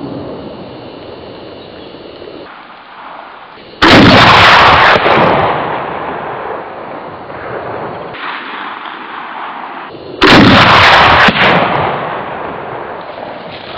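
20×110 mm Sarac semiautomatic rifle firing two shots about six seconds apart. Each shot is a sudden, very loud blast lasting about a second, followed by a long fading echo.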